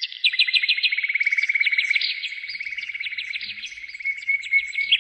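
Bird song: a fast, continuous run of high chirping notes, trilling on without a break.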